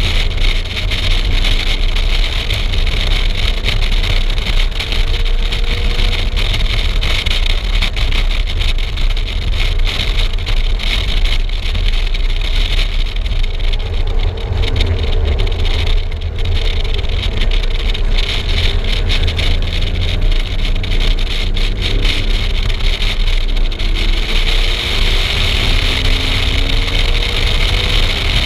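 Car driven at speed, heard through a camera mounted outside the car: heavy wind buffeting on the microphone, with the engine's note faintly rising and falling beneath it.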